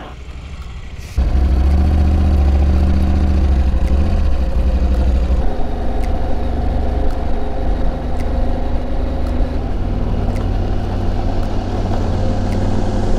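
KTM adventure motorcycle engine running under way, jumping louder as the throttle opens about a second in, with a change in pitch about five seconds in.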